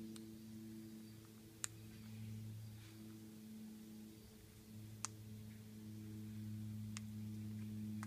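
A steady low hum, with three sharp clicks about a second and a half in, at about five seconds and at about seven seconds: king parrots' beaks cracking seed and pecking on a wooden railing.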